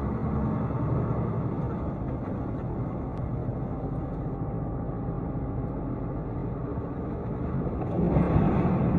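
Steady road and engine noise of a moving vehicle, heard through a dashcam, getting louder about eight seconds in.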